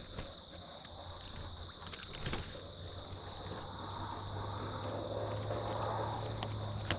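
A low, steady engine-like hum that grows louder through the second half, with a few faint clicks.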